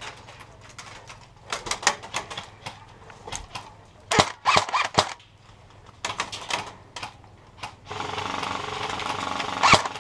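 Airsoft guns firing in short bursts of rapid clicks and snaps, several bursts in a row, the loudest about four seconds in. A steady hiss sets in near the end.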